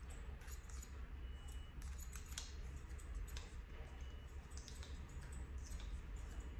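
Barber's scissors snipping hair in quick, irregular runs of crisp clicks, over a low steady hum.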